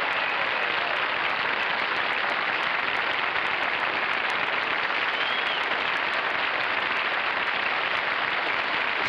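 Studio audience applauding steadily, with no break or swell.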